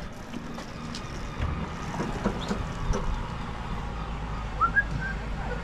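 Faint clicks and knocks as the door of an old telephone kiosk is pulled open, over a low steady rumble. A short rising chirp comes a little before the end.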